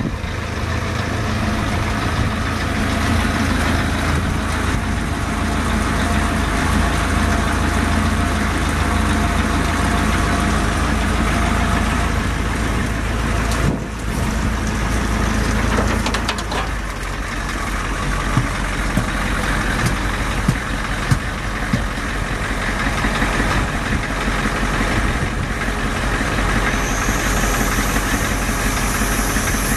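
A 1983 Ford F350's 6.9-litre V8 diesel engine idling steadily, with a few brief clicks about two-thirds of the way through.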